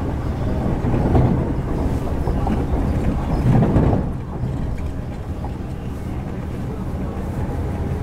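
Hyundai Rotem EMU electric train running, heard from inside a motor car: a steady low rumble of wheels on rail with a faint traction-motor hum. It swells over the first four seconds, then eases to a steadier, quieter run.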